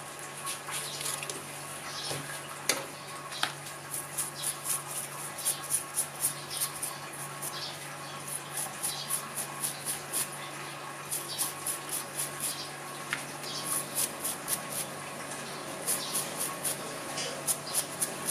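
Cotton swab scrubbing a small metal fishing-reel part, in quick runs of several rubbing strokes a second, wiping off grime loosened by a lighter-fluid soak. A couple of small sharp clicks come about three seconds in.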